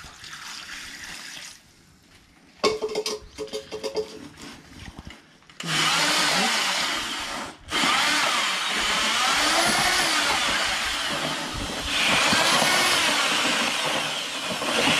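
Handheld electric paddle mixer churning wet concrete in a plastic tub. A few short bursts of clatter come about three seconds in, then the mixer runs steadily from about five and a half seconds, with a brief stop near eight seconds.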